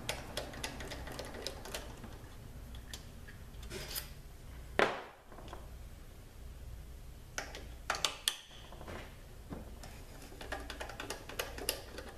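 Hand ratchet on a long extension clicking in short runs as the bolts holding the Lineartronic CVT valve body are unscrewed, with one louder clunk about five seconds in.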